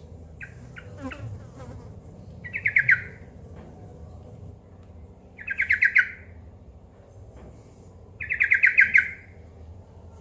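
Yellow-vented bulbul (trucukan) calling: three fast rattling trills of rapidly repeated notes, a few seconds apart, after a few short chirps near the start.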